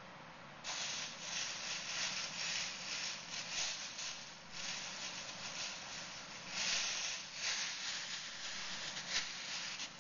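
A bag rustling and crinkling as it is handled, in uneven bursts that start about half a second in and go on, with pauses, to the end.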